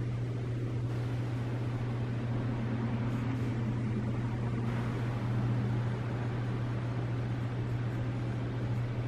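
Steady low machine hum with a constant background hiss, unchanging throughout.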